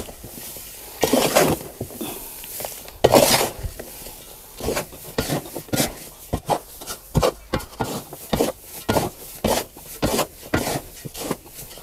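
Small hand hoe scraping and turning a dry mix of soil, rice husks and ground cow manure in a large mixing tub. Two heavier strokes come in the first few seconds, then quicker scraping strokes about two a second.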